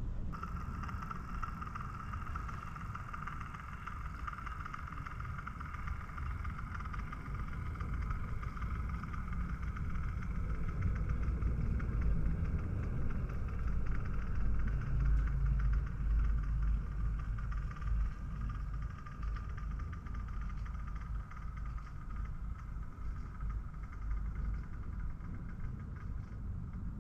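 Model railway train running: a low rumble of wheels on the track under a steady mid-pitched hum from the locomotive, growing a little louder midway and then easing off.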